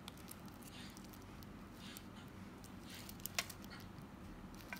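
Faint handling noise: gloved fingers rustling and rubbing on a plastic-wrapped metal watch bracelet as the wristwatch is turned over, with a few small clicks and one sharper click about three and a half seconds in.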